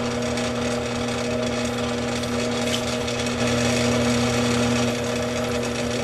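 Drill press running steadily, its bit drilling a pin hole through a stainless steel gas block into a rifle barrel. It gets louder for about a second and a half around the middle.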